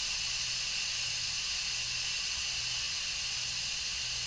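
Instant Pot electric pressure cooker's steam release valve hissing steadily: pressure being vented after cooking, with the valve turned from sealing to venting.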